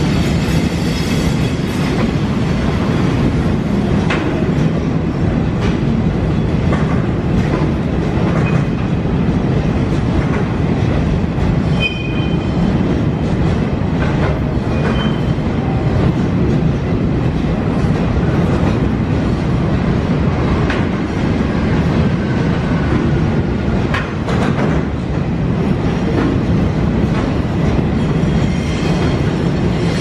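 Quarry train's hopper wagons rolling past in a steady rumble, with wheels clicking over rail joints now and then and a couple of brief high wheel squeals near the middle.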